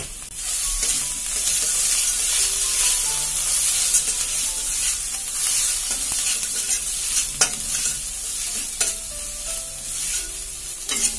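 Onion and spice paste sizzling in mustard oil in a stainless steel kadai while a steel spatula stirs and scrapes it round the pan, with a few sharper scrapes or knocks of the spatula on the metal.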